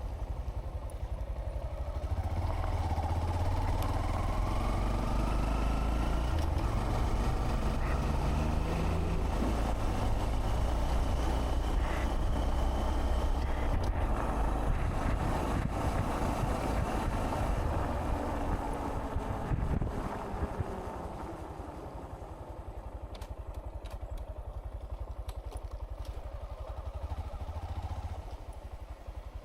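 Honda Monkey 125's single-cylinder engine under way, rising in pitch as it accelerates, then running steadily at speed. About twenty seconds in the engine note drops away to a quieter, steady run.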